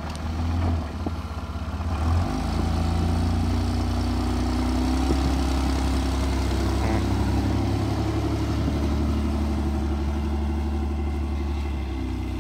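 Toyota Land Cruiser FZJ80's straight-six engine driving the truck through deep snow: it revs up about two seconds in and then pulls steadily under load.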